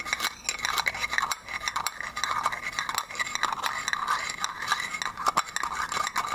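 A stack of small metal rings handled close to the microphone, clinking and scraping against each other in a quick, dense run of small clicks with a faint metallic ringing.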